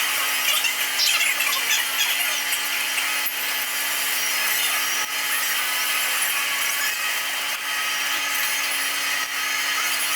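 A power tool running continuously against metal, a steady harsh rasping noise with no pauses.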